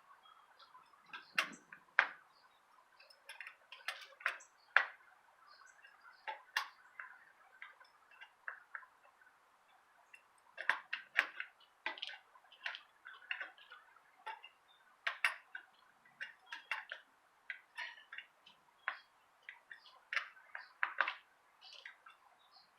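Irregular small metallic clicks and ticks from a bicycle wheel's spokes being worked on, as loose spoke nipples are tightened with a spoke wrench during wheel truing. The clicks come singly and in short clusters, with no steady rhythm.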